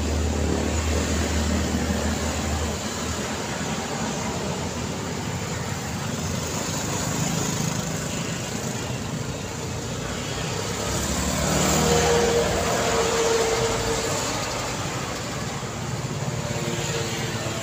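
Street traffic: motor scooters and a light truck passing close by, with a low engine rumble strongest in the first three seconds. A louder vehicle passes about twelve seconds in.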